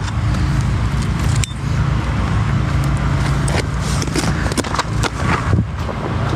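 An engine idling steadily, with scattered short knocks and clatter over it.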